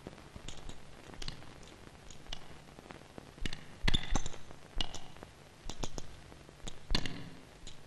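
Brass combination lock on a leather briefcase: its number wheels click as a finger rolls them, in short uneven runs of small clicks. There are louder clicks about four seconds in, when the thumb presses the latch, and again near the end.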